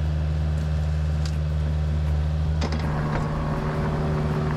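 Kubota KX057-5 mini excavator's diesel engine running steadily while it works. A few sharp clicks and crackles come a little past halfway, followed by a rougher rushing layer over the engine.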